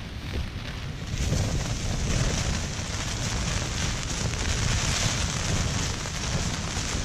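Rain falling on a tent with wind gusting against it, heard from inside the tent; it grows louder about a second in.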